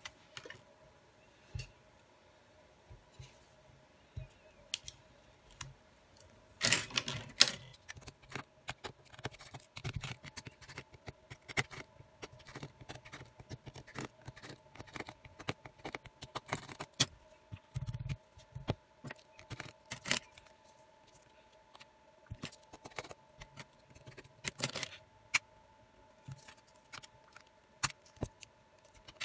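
Scattered small clicks, taps and scrapes of a smartphone's plastic parts and adhesive film being handled by hand during disassembly, with a louder rustling burst about seven seconds in and another near the end. A faint steady hum runs underneath.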